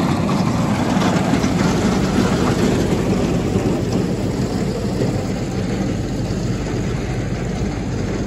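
Paddy-cleaning fan (winnower) running steadily, blowing the chaff out of the paddy as the grain pours through it: a loud, even rumble with a rain-like hiss of falling grain, easing slightly about halfway through.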